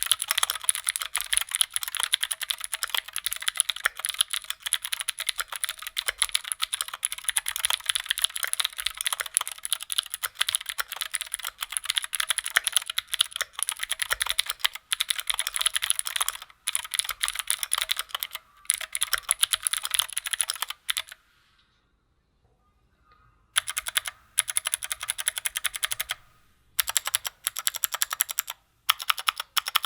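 Fast, continuous typing on a Keychron Q2 prototype mechanical keyboard fitted with clicky Gateron G Pro Blue switches, a dense stream of sharp key clicks. The typing stops for about two seconds some two-thirds of the way through, then resumes.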